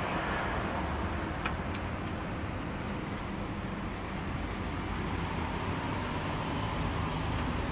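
Steady background rumble and hiss, like outdoor traffic noise, with a couple of faint sharp clicks.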